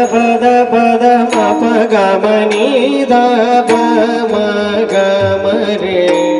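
Marathi devotional kirtan music: singing of a held, wavering melody over sustained accompaniment. Sharp percussion strokes fall about once every second and a bit.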